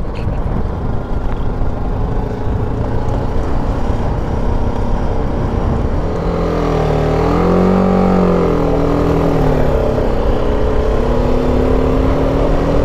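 BMW G310 GS single-cylinder motorcycle engine running while riding a gravel track, over a steady rumble of road noise. About six seconds in, the engine revs up and then drops back within a couple of seconds, then runs steadily with its pitch creeping up near the end.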